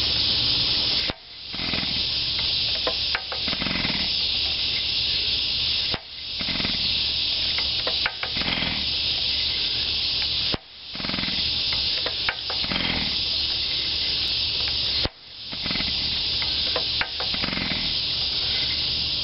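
A loud chorus of seventeen-year periodical cicadas, a steady high hiss. It drops out suddenly four times and swells back each time.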